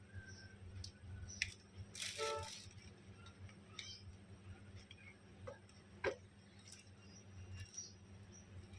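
Plastic parts of a rechargeable fan clicking and rattling as they are handled and fitted together, with a short louder scrape about two seconds in and scattered clicks after.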